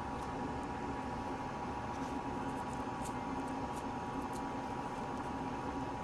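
Steady room tone with an even electrical hum, and a few faint light clicks around the middle.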